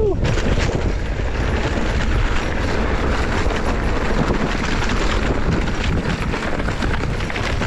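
Mountain bike descending a rough dirt trail: a steady rush of wind on the microphone under a constant rattle and clatter of the bike and tyres over the ground.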